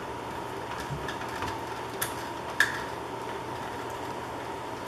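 A few small clicks and taps from hand tools and electrical wire being handled during a wire splice, the sharpest one about two and a half seconds in, over a steady faint hum.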